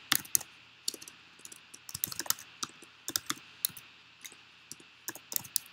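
Typing on a computer keyboard: irregular runs of sharp key clicks with short pauses between them.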